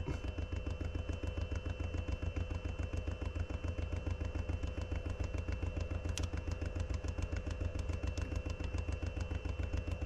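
A machine running steadily with a rapid, even pulse, about ten beats a second, over a low rumble and a faint steady whine.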